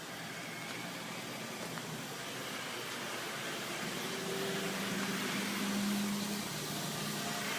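Motor vehicle noise: a steady rush with a low engine hum that comes in about halfway through and gradually grows louder.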